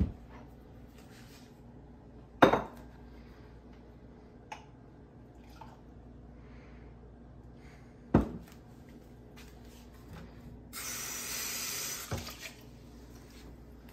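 Sharp clacks of cups and dishes being set down and handled, the loudest about two and a half seconds in and another around eight seconds. Near the end a kitchen tap runs for about a second over a cup being rinsed, followed by one more clack.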